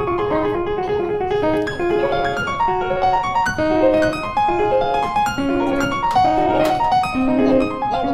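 Background piano music: a melody of single notes, moving from note to note every half second or so.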